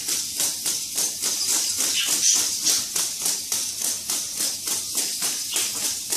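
3D-printed hexapod robot walking, its plastic legs tapping and clicking on a concrete floor in a quick, even patter of about five or six taps a second.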